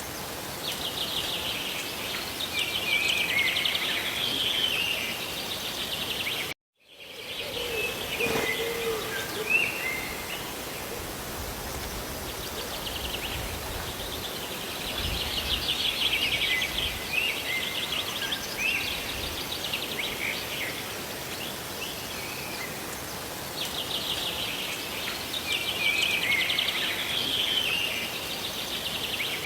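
Steady hiss of rain and falling water with songbirds singing rapid trilling, chirping phrases over it in several spells. The whole sound cuts out for a split second about a quarter of the way in.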